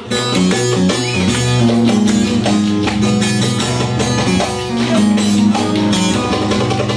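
Instrumental break in a Turkish folk song, with no singing: plucked string instruments play held notes over a steady percussion beat.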